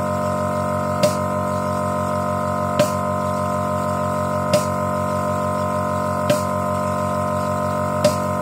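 A steady mechanical hum of several fixed tones, with a short sharp click repeating evenly about every second and three-quarters.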